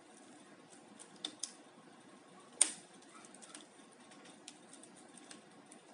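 Keys being pressed on the freshly installed replacement keyboard of a Lenovo Yoga 13 laptop: scattered light key clicks, with two sharper clicks a little after a second in and one much louder click about halfway through.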